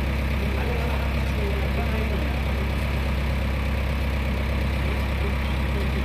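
JCB 3DX backhoe loader's diesel engine idling steadily.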